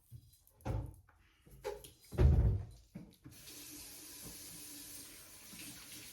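A few knocks and a heavier thump of things being handled, then a bathroom sink tap is turned on about three seconds in and water runs steadily into the basin.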